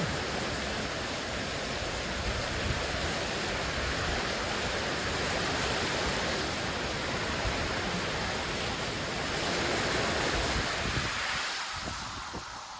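Typhoon wind and rain: a steady, heavy rushing noise that thins out in its lower part about eleven and a half seconds in.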